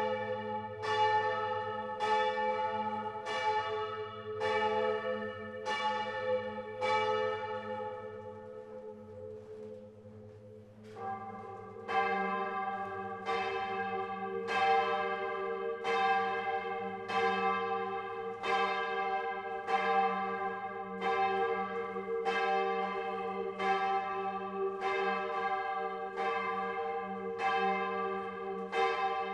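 Large Grassmayr-cast bronze church bells swinging and ringing, heard close up inside the bell tower, with strikes about once a second and a long hum underneath. The strikes die away a little before halfway, then a different, fuller chord of bells sets in and carries on.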